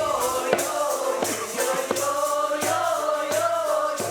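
Music: voices singing a slow, chant-like melody over a steady drum beat of about one stroke every two-thirds of a second.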